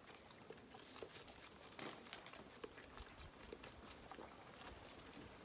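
Faint barn sounds of Zwartbles lambs: one suckling at a feeding bottle while others shift their hooves in the straw, heard as scattered soft clicks and rustles.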